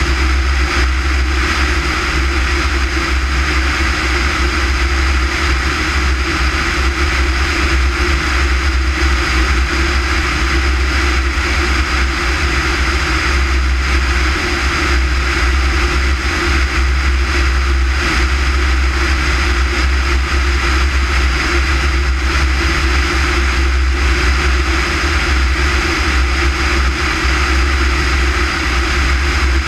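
Light propeller aircraft in level flight: the engine and propeller drone steadily, mixed with a steady rush of air over the outside-mounted camera.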